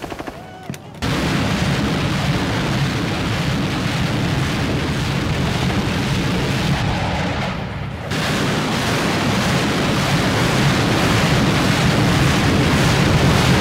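Battle noise of heavy weapons fire: a short rapid rattle of shots, then from about a second in a dense, continuous roar of gunfire and explosions.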